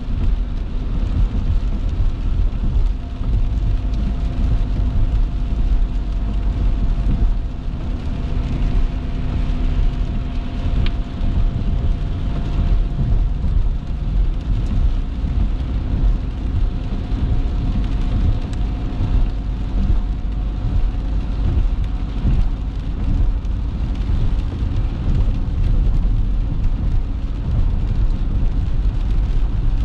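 Road noise of a moving car heard from inside the cabin through a dash-mounted GoPro: a steady low rumble of tyres and engine, with a faint steady whine.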